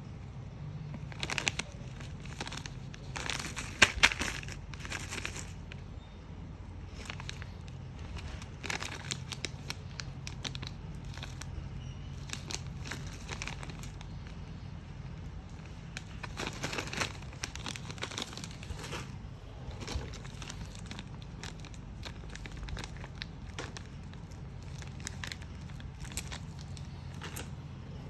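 Plastic packaging crinkling and rustling in irregular bursts as it is handled, with a few sharp clicks near the end, over a steady low hum.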